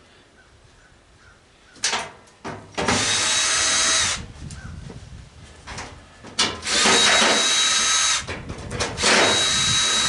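Power drill driving screws out of a gas cook stove's sheet-metal panels, running in three bursts of about a second each with a steady high whine, and a few short clicks and rattles between them.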